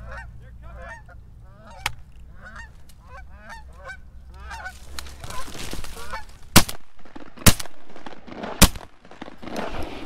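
Canada geese honking in a quick series of calls, then three shotgun shots about a second apart, the loudest sounds here, fired at the incoming geese.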